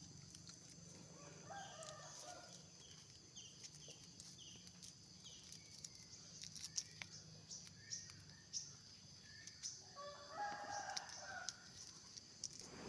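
A rooster crowing faintly, twice: once about a second and a half in and again about ten seconds in, with small high bird chirps between the crows.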